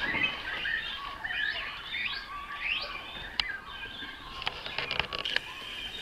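Great cormorant chicks giving many overlapping high, squeaky begging calls, some rising in pitch, with a few sharp clicks near the end.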